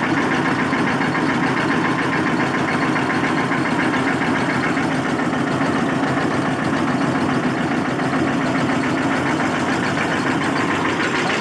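Eicher tractor's diesel engine running steadily, powering a mobile mustard-oil expeller as seed is crushed: a dense, even mechanical drone with a fast, regular chug.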